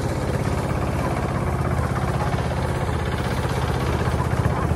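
Hand tractor's engine running steadily with a fast, even beat while it pulls a loaded trailer along a dirt road.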